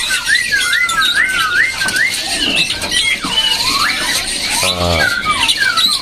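Caged laughingthrushes (poksai) calling: a quick run of repeated rising whistled notes, then varied whistles and glides, with a short harsh call about five seconds in.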